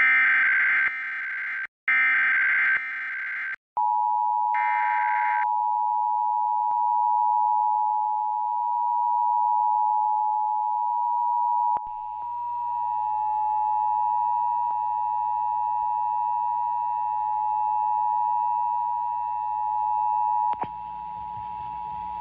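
Emergency Alert System test signal: several short screeching bursts of the digital SAME data header in the first few seconds, then the EAS attention signal, a steady two-tone beep of 853 and 960 Hz, held for about eighteen seconds. A faint hum joins underneath about halfway through.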